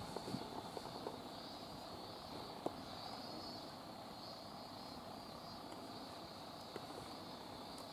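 Quiet outdoor ambience: a steady high-pitched buzz over a faint low rumble, with a few small clicks in the first second and a single sharp tick a little under three seconds in.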